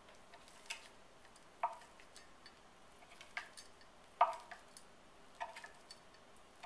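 Chef's knife slicing through a log of rolled crescent dough and knocking on a wooden end-grain cutting board: a series of sharp taps, about one a second, the loudest a little past four seconds in.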